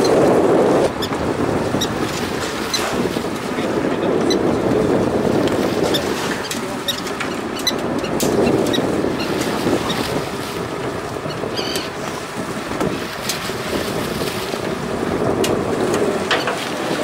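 Open-sea ambience on a small fishing boat: a steady rush of wind on the microphone and water against the hull, louder for the first second, with scattered light clicks and knocks from gear on deck.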